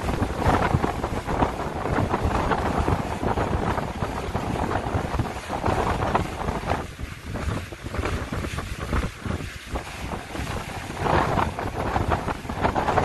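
Wind buffeting the microphone on a moving motorboat, gusting louder and softer, over the rush of water along the hull.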